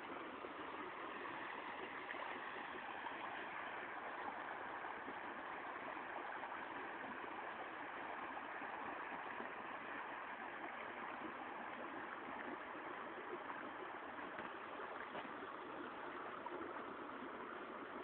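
Creek water running steadily over rocks: an even, unbroken rushing with no distinct splashes.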